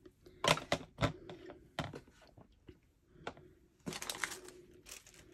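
Clear plastic cutting plates for a mini die-cutting and embossing machine clicking and tapping as they are handled and set into the machine: a string of sharp, irregular clicks, thickest about four seconds in.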